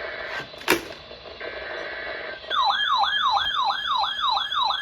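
An electronic siren sounding a fast yelp, its pitch sweeping rapidly up and down about four times a second, starts about halfway through. A sharp click comes a little under a second in.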